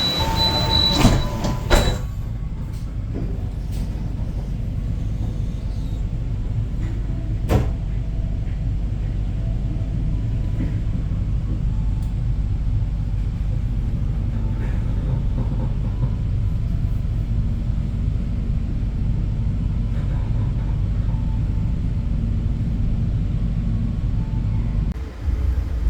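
Passenger train coach running along the track: a steady low rumble, with a few clicks in the first two seconds and a single sharp knock about seven and a half seconds in.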